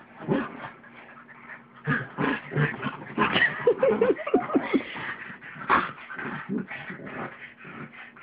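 A pug and a small mutt play-fighting, with short dog yips and whines. The sounds grow busier about two seconds in and include a quick run of short, high cries near the middle.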